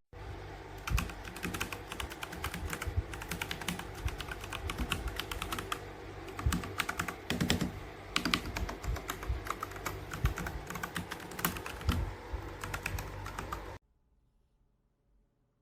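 Fast, continuous typing on a mechanical keyboard fitted with PBT dye-sub keycaps, a dense run of irregular key clacks. It cuts off suddenly near the end.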